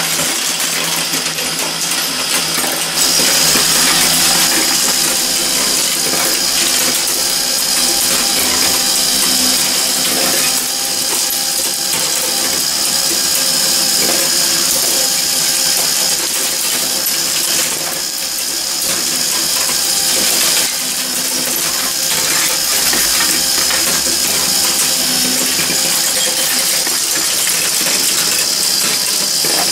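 Glass marbles clattering and rolling over the steel strips, plates and chutes of a working Meccano marble machine: a dense, continuous run of metallic clinks over the steady running of its mechanism, getting louder about three seconds in.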